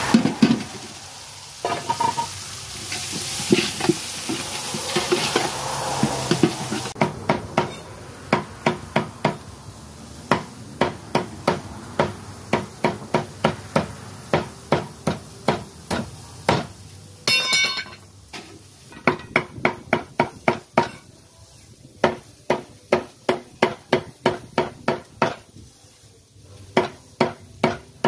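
A metal spatula stirs and scrapes in an aluminium cooking pot for the first several seconds. Then a cleaver chops an eel into pieces on a wooden chopping block, in runs of sharp chops about two a second with short pauses.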